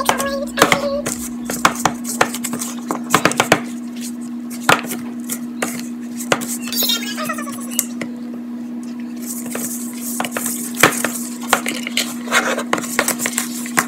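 Wooden spoon stirring stiff cookie dough in a mixing bowl, with irregular knocks and clacks of the spoon against the bowl, over a steady low hum.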